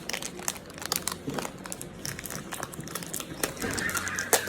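Packaging crinkling and crackling in the hands as it is opened.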